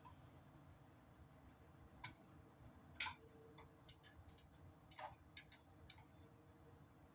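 Faint, scattered clicks and taps at irregular intervals. The sharpest comes about three seconds in, and a few lighter ones follow near five to six seconds, over a low background hum.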